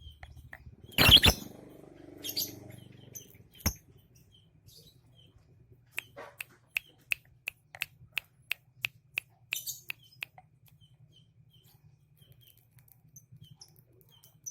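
Pet bird chirping: short high chirps, with a quick run of sharp, evenly spaced chirps at about three a second in the middle. A loud sharp noise comes about a second in, and a faint low hum runs underneath.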